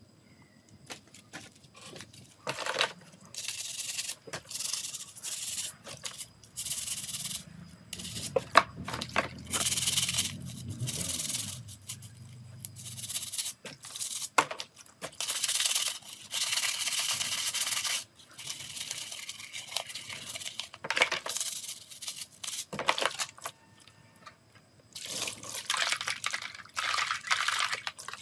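Hand work on small phone parts: repeated scratchy rubbing or scrubbing strokes, each a second or a few seconds long, broken by small sharp clicks and taps.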